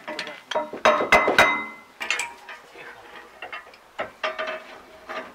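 Steel hand tools clinking and knocking against the steel parts of a round baler during a roller bearing repair: a cluster of sharp, ringing metal strikes about a second in, then lighter clicks and a ringing note near the end.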